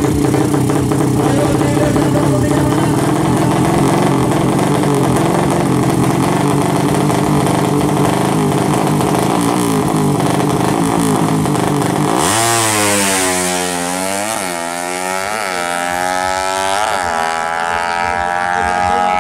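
A 200 cc SOHC four-stroke drag bike engine is held at high, steady revs on the start line. About twelve seconds in it launches, and the pitch climbs and drops back through several quick upshifts as the bike pulls away down the strip.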